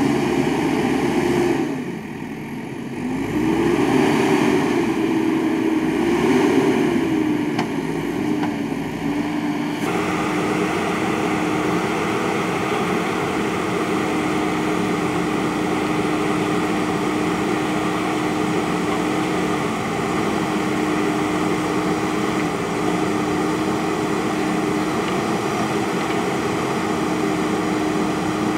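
JCB backhoe loader's diesel engine running, its pitch rising and falling several times as it is revved, then, after an abrupt change about ten seconds in, holding steady.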